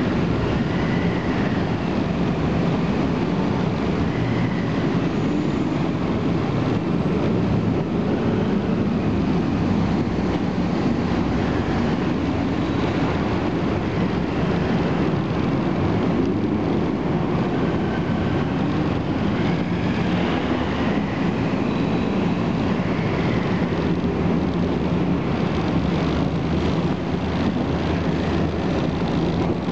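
Steady, loud engine rumble of vehicles disembarking from a car ferry, without a break.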